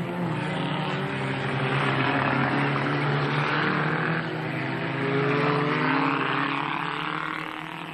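Several racing saloon cars' engines revving hard on a dirt autocross track, their pitch rising and falling with throttle and gear changes. The sound swells twice as cars pass and fades near the end.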